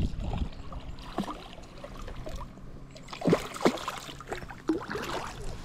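Hooked smallmouth bass splashing at the surface of shallow river water as it is reeled in, in a string of irregular splashes, the sharpest pair a little over three seconds in.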